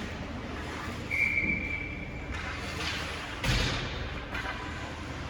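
A single steady whistle blast of about a second, then about two seconds later a sharp thud such as a puck or body hitting the boards, over the rink's background noise.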